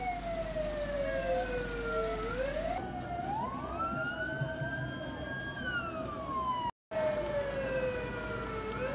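Several emergency-vehicle sirens wailing together in slow rising and falling sweeps, breaking off for an instant about seven seconds in.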